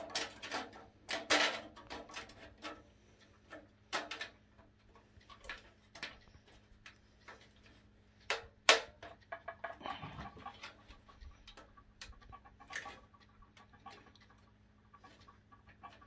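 A thin sheet-metal motherboard I/O shield being pressed by hand into the rear opening of a PC case: irregular clicks and taps as its edges and springy tabs meet the case. The loudest snap comes a little under nine seconds in.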